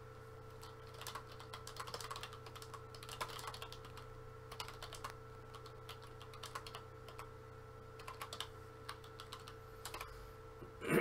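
Typing on a computer keyboard: a run of quick, light key clicks in irregular bursts, over a faint steady hum.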